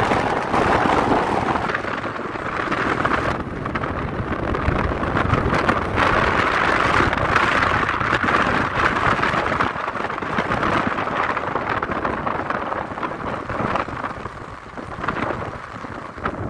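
Wind rushing over the microphone from a moving vehicle, a steady noise with road rumble underneath, easing off near the end.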